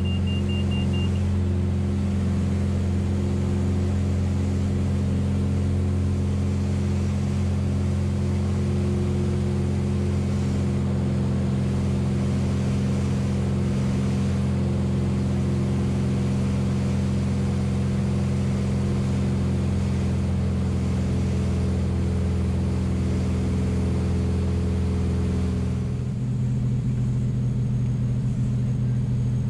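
Turbocharged six-cylinder engine and propeller of a 1979 Mooney M20K, a steady drone heard inside the cabin at high power for takeoff and climb; near the end the note changes and drops as power is reduced. A short run of high beeps sounds at the start.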